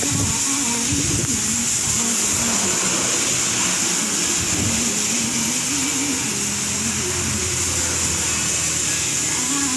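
Pressure washer running steadily, its motor droning under the hiss of the high-pressure water jet spraying onto a car's bodywork.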